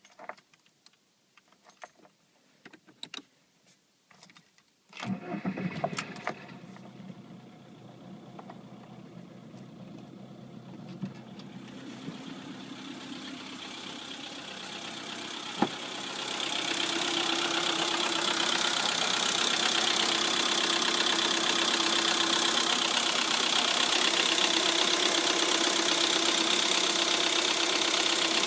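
A few light clicks, then the Lada Priora's engine cranks and starts about five seconds in and settles into an idle that grows louder until it holds steady, with the tapping of its hydraulic lifters: two of the lifters have failed.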